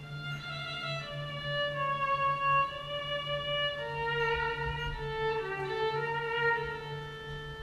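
Music accompanying a Malay dance: a violin plays a slow melody of long held notes, gliding between some of them, over a steady low hum.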